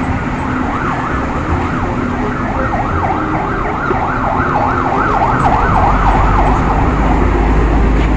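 Electronic siren yelping fast, about four rising-and-falling wails a second, over steady workshop and traffic noise. The yelping fades about six seconds in as a low rumble comes up.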